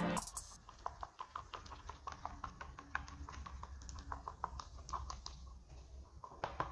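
Light, irregular clicks and taps of small objects being handled, several a second, over a faint steady low hum.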